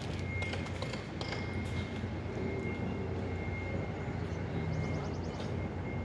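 Construction machinery engine running steadily: a low hum with a thin, steady high whine above it and a few clicks in the first second or two.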